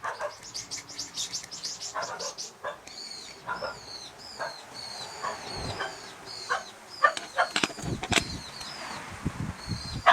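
A small bird calling over and over in short, high, downward-sliding chirps, after a fast run of high ticks. Under it are scattered short knocks, and two sharper, louder knocks come about two-thirds of the way in.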